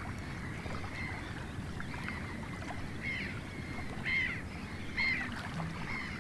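Great crested grebes calling: short, high piping notes repeated about once a second from about two seconds in, over a steady low splashing and lapping of water.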